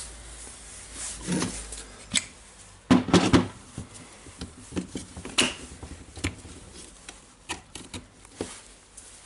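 Handling noise from impact-wrench parts being reassembled: scattered knocks and clicks of a metal gear housing and motor parts set against a hard plastic tool housing, loudest in a short cluster about three seconds in.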